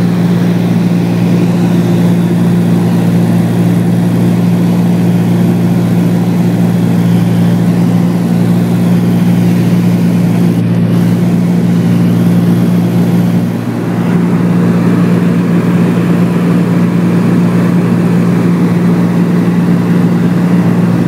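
Aircraft engine droning steadily in flight, loud and constant with a deep, even hum, easing for a moment about two-thirds of the way through.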